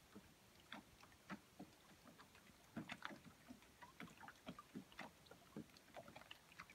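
Near silence at a lakeshore: small ripples lapping at the shore in faint, irregular little splashes and clicks.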